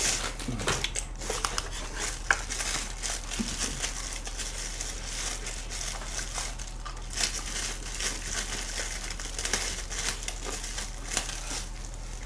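Thin disposable plastic glove crinkling and rustling as it is handled and pulled at, the hand struggling to go into it.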